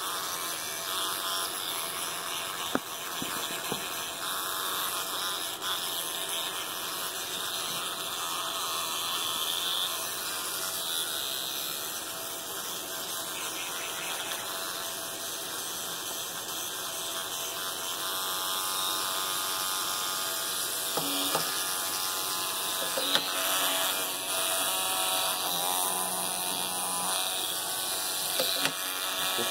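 Electric toothbrush running with a steady buzz while a capuchin monkey holds it and mouths the brush end. A few sharp knocks stand out, one about a quarter of the way in and a couple near the end.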